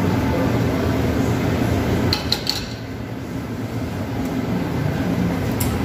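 Steady low hum of a café bar, with a few light clinks of crockery or metal about two seconds in.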